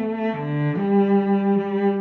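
Background music: a slow melody of long held notes that change pitch every half second to a second.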